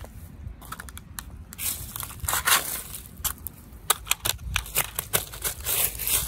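Dry leaves and litter crackling and crunching under sandalled footsteps, in an irregular run of sharp crackles.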